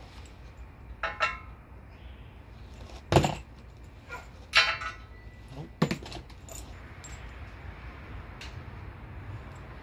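Small loose steel hardware (nuts, bolts and washers) clinking and rattling as it is handled, with a few sharp metallic clinks and knocks; the loudest knock comes about three seconds in.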